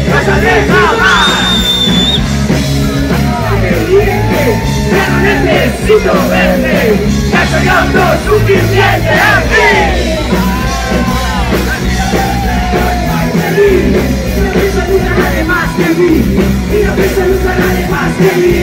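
A punk rock band playing live, loud: a woman sings and shouts into a microphone over a driving bass line and drums. It is heard from among the crowd near the stage.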